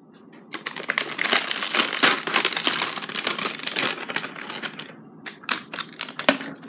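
Dry, crisp crackling and rustling as a sheet of roasted seaweed (gim) is handled, a dense run of rapid crackles, followed by a handful of separate sharp clicks and taps near the end.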